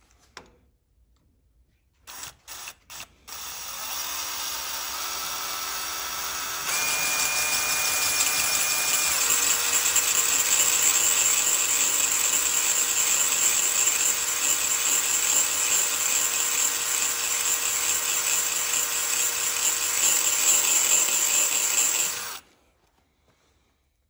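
DeWalt XR cordless drill with a 7/32 cobalt bit boring into a heat-treated steel scissors blade held in a vise, the steel harder than expected. After a few short trigger blips, the drill runs at low speed from about four seconds in. Near seven seconds it goes to full speed, with a high steady tone for a couple of seconds, then runs on steadily and stops abruptly about two seconds before the end.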